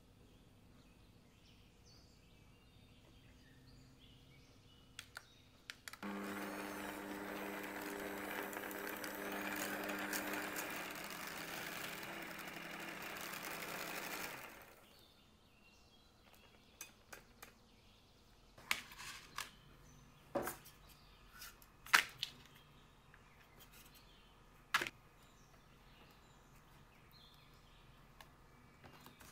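Smeg stand mixer whisking whipped cream and condensed milk together, running steadily for about eight seconds and then switching off. Afterwards come a few sharp clicks and knocks as crisp wafer sheets are handled and laid into a metal cake frame.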